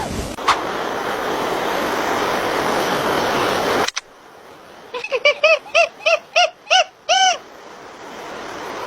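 A steady hiss with a click about half a second in, cut off suddenly about four seconds in. Then a run of about eight short calls from an animal, each rising and falling in pitch, the last one held a little longer.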